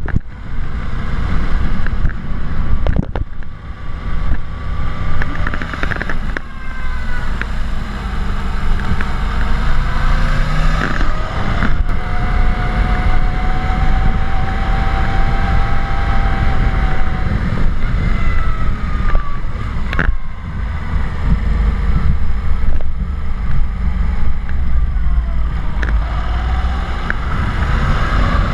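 Wind buffeting the microphone of a GoPro on a moving bike, a heavy steady rumble, with engine tones that hold steady for a while and rise and fall at times, and a few sharp knocks.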